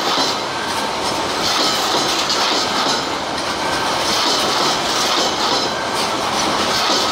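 Loaded coal hopper wagons of a freight train rolling past close by, steel wheels clattering over the rail joints in a steady clickety-clack that swells about every two seconds as each wagon goes by.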